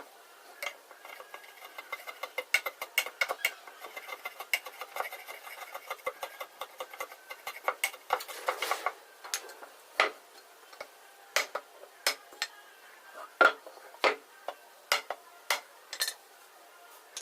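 Light clinks and taps of tools on wood and metal, quick and dense for the first several seconds, then separate sharper knocks every half second to second.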